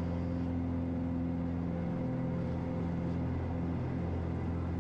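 Piper Malibu's single piston engine and propeller running at takeoff power during liftoff and initial climb. It is a steady, even drone with no change in pitch.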